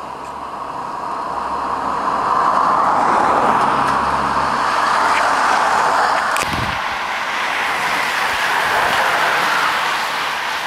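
A car drives past close by, followed by a pack of racing bicycles whirring past. The rushing noise swells about two seconds in, with a low engine hum that fades out about halfway, and the whir of the passing bikes slowly eases toward the end.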